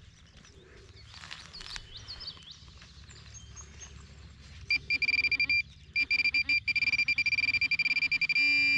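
Garrett Pro-Pointer AT pinpointer beeping in rapid pulses from about halfway through, the pulses running together into one steady tone near the end as it closes in on a metal target in the dug soil.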